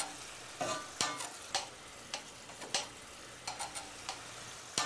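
Chef's knife knocking and scraping against the bottom of a stainless steel frying pan as it chops peeled plum tomatoes in the sauce. The knocks are irregular, about one every half second, over a soft steady sizzle of the sauce.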